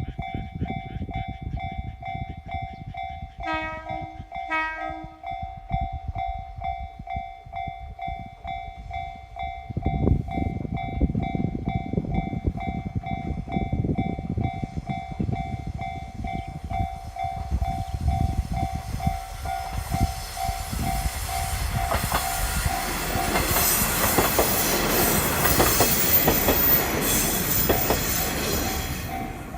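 Japanese level-crossing alarm ringing steadily while a KiHa 48 diesel railcar gives two short horn blasts about three and a half seconds in. The railcar's engine rumble then grows as it approaches, and in the last third it passes the crossing close by with loud wheel and rail noise.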